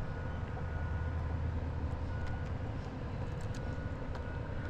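Wind buffeting an action camera's microphone: a steady low rumble, strongest in the first two seconds. A few light clicks come past the middle.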